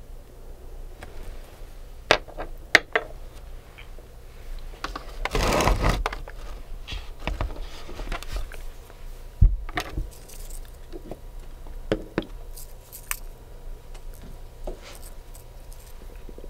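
Nail-art tools and materials being handled close to the microphone: scattered sharp clicks and taps, with a longer scraping rustle about five seconds in.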